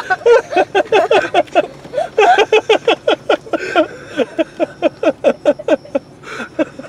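Hearty human laughter: a long run of quick, pulsing laughs that pauses briefly about two seconds in and tapers off toward the end.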